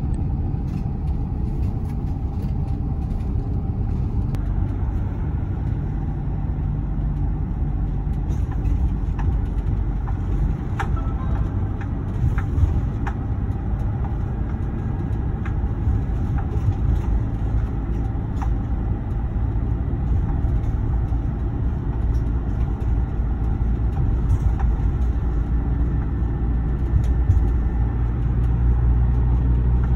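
Car driving at road speed, its engine and tyre rumble heard from inside the cabin as a steady low drone, with a few faint clicks in the middle and the rumble growing a little stronger near the end.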